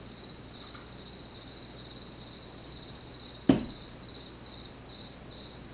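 Cricket chirping in a steady, high, pulsing trill, about four pulses a second. A single sharp click comes about three and a half seconds in.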